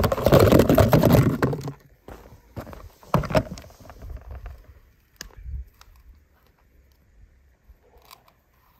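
Hands handling a die-cast toy car and kinetic sand: a loud rustling scrape for the first two seconds, then scattered small scrapes and taps as the sand is pressed and dug into, fading near the end.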